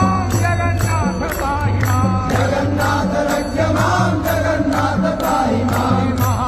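Hindu devotional music: a chanting singing voice over a steady beat of struck percussion, about three strikes a second.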